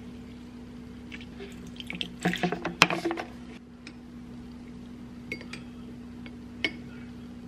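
A lemon half squeezed by hand over a small glass bowl, juice dripping in, with a sharp clink a little before three seconds. Then a metal spoon stirs the sauce, clinking lightly against the glass a few times. A steady low hum runs underneath.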